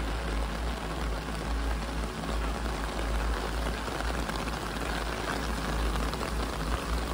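Steady rain falling and spattering on surfaces, with a constant low rumble underneath.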